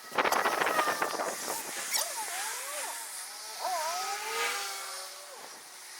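Garden hose spraying water onto small metal bike-hub parts to rinse out old grease: a loud splattering burst for about a second, then softer spraying. Faint whistling tones glide up and down in the background after it.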